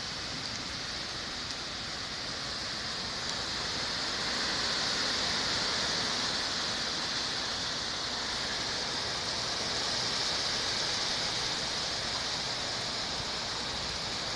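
Thunderstorm wind rushing through the trees, a steady hiss that swells a little about four seconds in and again around ten seconds.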